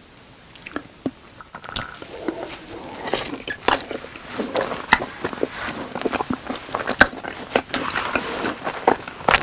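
Close-miked chewing and biting of Goobne Volcano boneless roast chicken in sauce: dense wet mouth clicks with sharper crunches. It starts after a quiet moment of about a second and a half.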